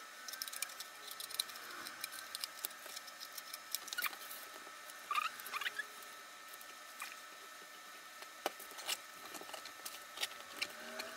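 Scissors snipping the corners off a sheet of patterned paper, then the paper rustling as it is pressed and folded over a cover board: faint scattered clicks and scratches, with a few short squeaks about five seconds in.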